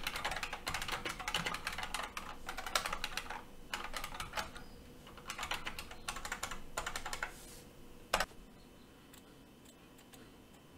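Typing on a computer keyboard: several quick bursts of key clicks, then one sharper single click about eight seconds in.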